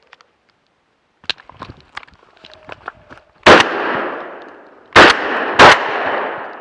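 Three gunshots from a hunting gun, the second and third close together, each followed by a long echo fading through the forest. A few light knocks and rustles come before the first shot.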